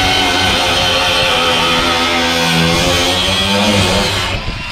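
Background guitar music that cuts off suddenly about four seconds in.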